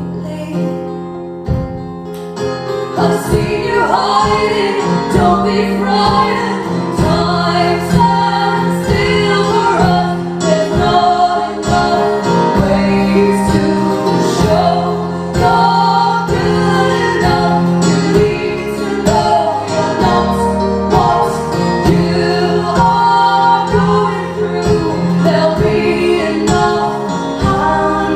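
Live acoustic folk-pop music: strummed acoustic guitar with female voices singing over it. The voices come in about three seconds in.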